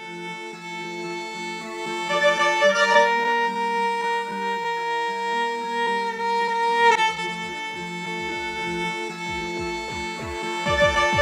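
Instrumental music: sustained bowed-string chords fading in and changing chord a few times. Short deep bass notes that fall in pitch come in about halfway.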